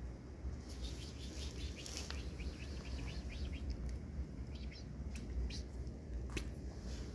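A cat lapping water from a glass dish: a quick run of small wet clicks, about six a second, from about half a second in until about three and a half seconds, then a few scattered clicks.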